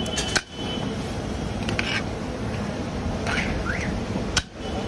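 A metal serving ladle scrapes and clinks against the inside of a large metal biryani pot while rice is scooped into a paper box. Underneath runs a steady hum of street noise. Two short sharp clicks come about half a second in and again near the end.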